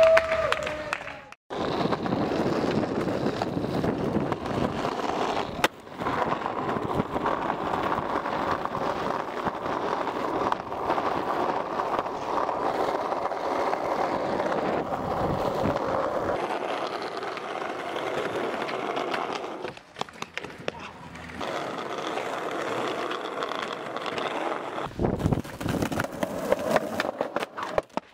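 Skateboard wheels rolling on rough asphalt in a steady rumble, with a few sharp clacks of the board. The sound cuts off abruptly several times.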